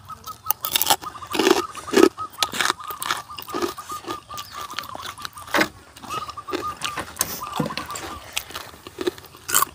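People chewing mouthfuls of papaya salad with crispy fried pork cracklings, giving irregular sharp crunches, one of the loudest a little past halfway.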